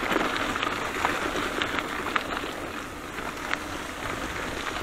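Bicycle tyres rolling over a wet, muddy gravel track, a steady wet hiss with scattered small clicks and rattles.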